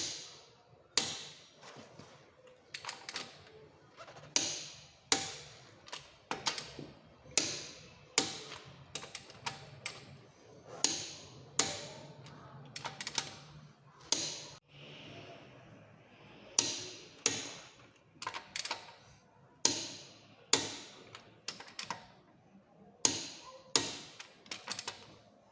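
Torque wrench on the front wheel nuts: a long series of sharp clicks and knocks, roughly one a second, as the nuts are tightened to spec.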